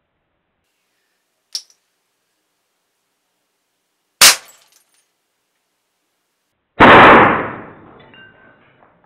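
Air rifle shooting at a hanging wristwatch and smashing it. There is a faint click about a second and a half in, a sharp crack about four seconds in, and a louder, longer blast near seven seconds that dies away over about a second.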